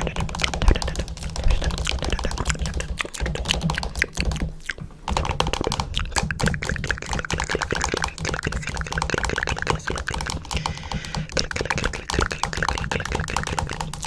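Rapid, dense clicking and tapping, many strikes a second, with a short pause about four and a half seconds in, over a steady low hum.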